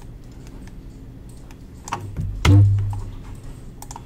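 Computer keyboard and mouse clicks, a few light scattered clicks, with one much heavier thump about two and a half seconds in.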